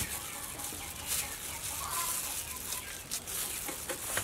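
Cooked mud crab being pulled apart by hand over a plastic colander: a few short cracks and snaps over a steady hiss, with faint animal calls in the background.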